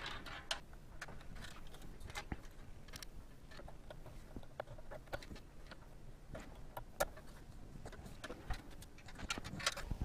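Scattered light clicks and taps of small plastic fan-cable connectors and wires being handled and pushed onto motherboard fan headers inside a PC case, with one sharper click about seven seconds in.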